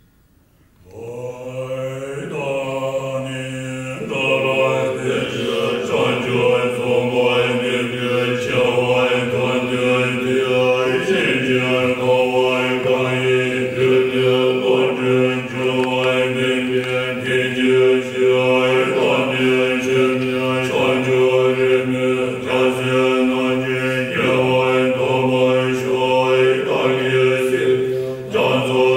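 Group of Tibetan Buddhist monks chanting together, beginning about a second in: a steady low drone rich in overtones, its syllables changing slowly, swelling a little louder a few seconds in.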